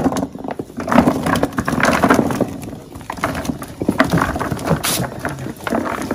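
Cut radish sticks tumbling from a metal pan into a plastic bucket: a dense, uneven clatter of light knocks as the pieces land on the plastic and on each other.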